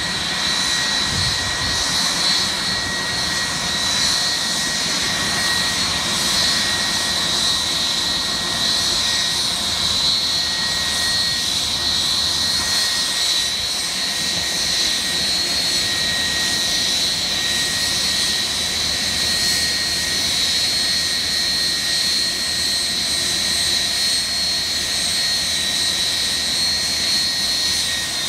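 Boeing 757-200's twin jet engines at idle as it taxis in: a steady high whine with a weaker lower tone over a constant rush of jet noise.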